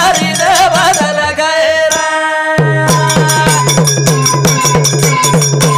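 Banjara bhajan music: a wavering melody over drumming, then from about two and a half seconds in a steady held chord over a low drone with quick, even percussion strokes.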